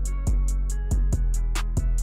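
Background music: a beat with kick drum, deep sustained bass and quick, evenly spaced hi-hat ticks.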